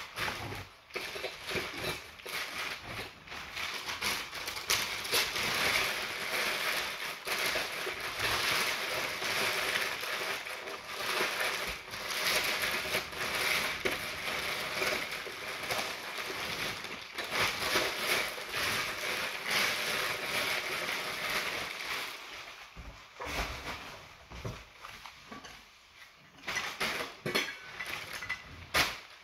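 Packing paper crinkling and rustling as pieces of silver crockery are wrapped by hand, with a few sharp clinks of the silver and glass pieces, mostly near the end.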